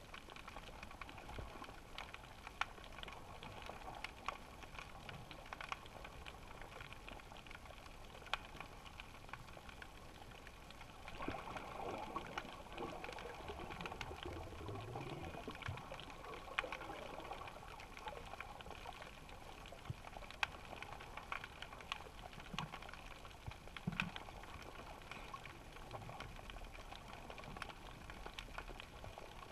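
Faint underwater ambience heard through a GoPro's waterproof housing: a low hiss with scattered sharp clicks and crackles, and a brief swell of low, shifting sound about halfway through.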